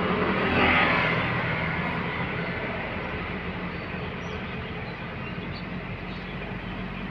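2017 Honda City's four-cylinder engine held at raised revs, swelling about a second in, then easing and running steadily. The engine is being revved to heat it up so the radiator fan switches to high speed.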